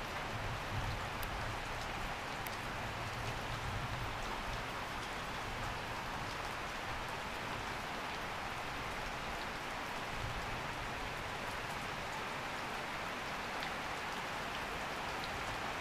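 Steady, even hiss of background noise, with faint scattered ticks.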